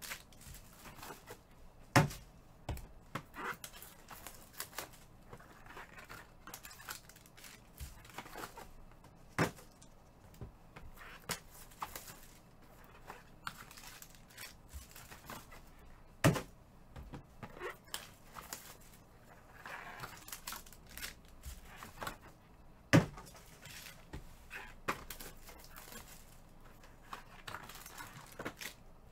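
Foil trading-card pack wrappers crinkling and tearing open, with cardboard boxes and cards handled on a table. Four sharp knocks stand out, spaced about seven seconds apart.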